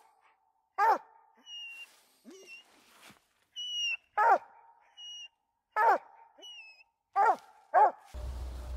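Walker coonhound barking up a tree, five short barks that each drop in pitch, the last two close together: the bark of a hound with a squirrel treed. Short high whistled notes sound in the gaps between the barks, and a low rumble comes in near the end.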